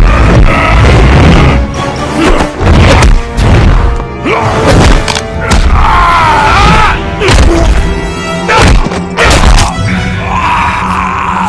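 Fight-scene sound effects: a string of heavy punch and kick impacts, some with booming thuds, over a loud dramatic film score.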